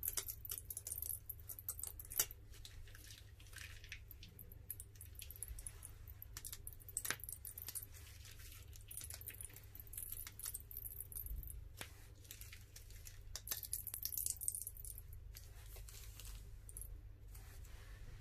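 Plastic piping bag being squeezed, crinkling and giving small sticky clicks as yellow slime is piped out in lines onto a layer of white slime. The clicks come in irregular flurries, busiest about two seconds in and again near fourteen seconds.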